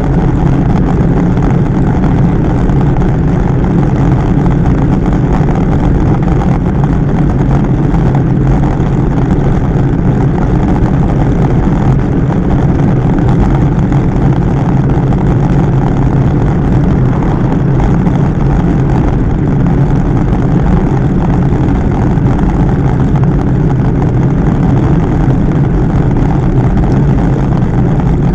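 Steady, loud wind rush over the microphone of a camera on a road bike riding at about 40 km/h, with rolling road noise underneath.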